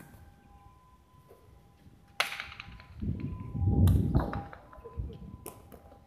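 Jai alai pelota cracking sharply off the hard court, once about two seconds in and again as a quick double crack near the end, with a low rumble between.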